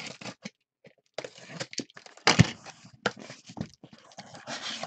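Sealed cardboard case of trading-card hobby boxes being handled and opened: short, irregular bursts of cardboard scraping and rustling, with a heavier thump about two and a half seconds in.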